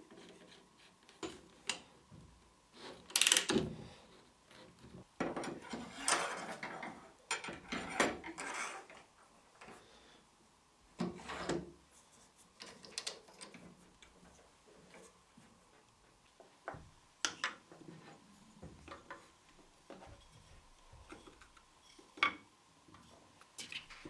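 Wooden workpieces being handled and moved about: scattered knocks and sliding, scraping rubs. The loudest knock comes about three seconds in, with longer scraping stretches around six to nine seconds and again at about eleven seconds.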